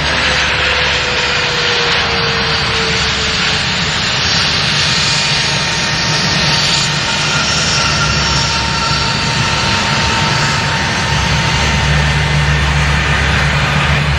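Bombardier CRJ regional jet's twin rear-mounted turbofans on landing: loud, steady jet engine noise, with a whine that falls in pitch as the jet passes in the first two seconds, then the engines rumbling as it rolls out along the runway, the low rumble growing stronger near the end.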